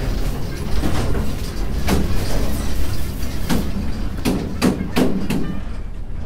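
An old truck driving, heard inside its cab: a steady low engine and road rumble with loose knocks and rattles from the cab, coming more often in the second half.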